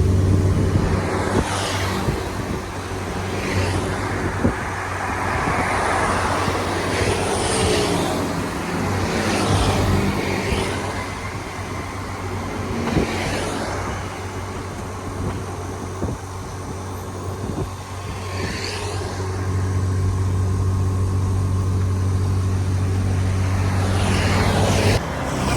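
Car driving on a road: a steady engine hum under tyre and road noise, with other vehicles passing several times.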